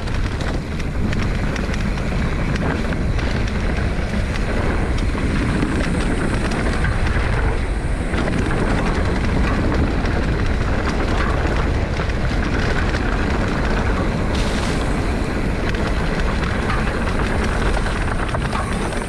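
Mountain bike descending a dirt trail at speed: heavy wind rumble on the microphone, with the tyres and the rattling bike giving many small knocks and clatters throughout.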